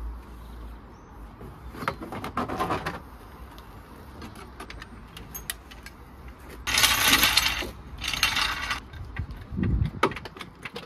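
Clanking and rattling of a steel trolley jack being carried and rolled into place under the rear of the car, with loud noisy bursts about two, seven and eight seconds in and a quick run of clicks near the end.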